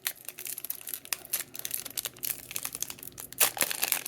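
Foil Pokémon booster-pack wrapper crinkling and being torn open by hand: a quick run of crackles that grows louder near the end.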